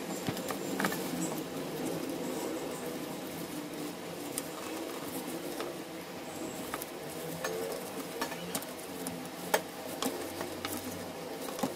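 A plastic lining is peeled and rustled off a cornstarch-dusted marshmallow slab on a steel tray. Scattered light clicks and taps against the metal tray run through it, with the sharpest one late on.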